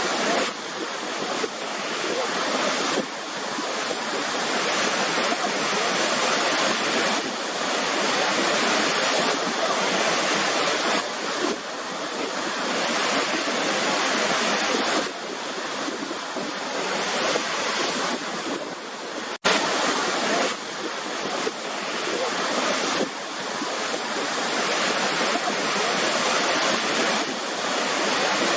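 Waterfall rushing: a steady, even roar of falling water that cuts out for an instant about two-thirds of the way through, then carries on.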